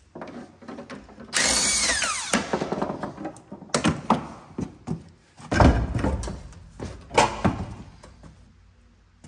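A power tool whirs for about a second while a wheel nut is undone, followed by clanks and several heavy thuds as the steel wheel with its chunky off-road tyre is worked off the rear hub of a jacked-up Range Rover Classic.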